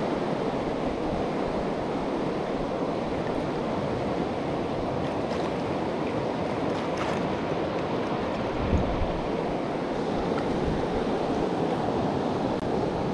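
Steady rush of a fast river running over riffles and small rapids, with an uneven low rumble of wind on the microphone and a brief low bump about nine seconds in.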